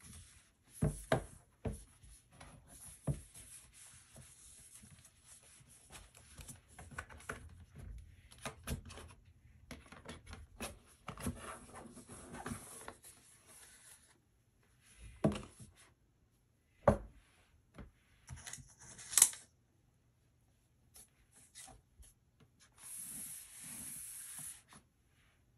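Hands handling a cardboard iPad Pro box on a wooden table: the cardboard rubs and scrapes as the lid is worked off, with several sharp taps and knocks of the box, the loudest about two-thirds of the way through. Near the end comes a steady papery rubbing as the contents slide out of the box.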